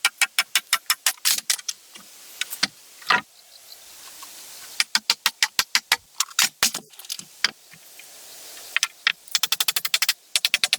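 Bursts of rapid sharp clicks, about ten a second, broken by short pauses and a few single clicks.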